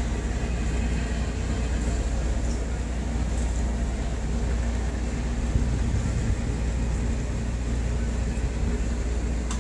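Steady low diesel rumble of a harbour tug's engines running, with a constant hum over it.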